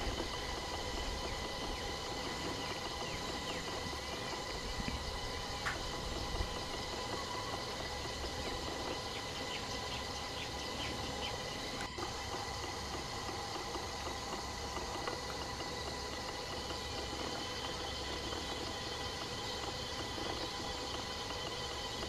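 Steady forest ambience: a constant drone of several high steady tones over a low rumble, with a few faint short chirps near the middle.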